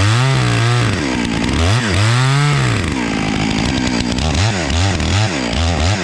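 Chainsaw cutting the face notch into a big maple trunk. The engine pitch sags under load and climbs back in long swells, then from about three seconds in rises and falls more quickly, in short revs.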